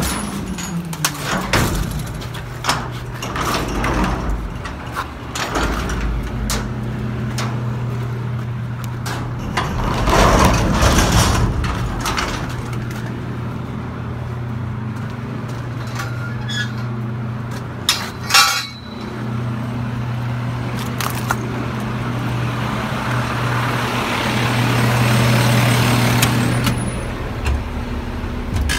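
Mack garbage truck's engine idling steadily, with scattered metallic clanks and knocks over it and a swell of hissing noise near the end.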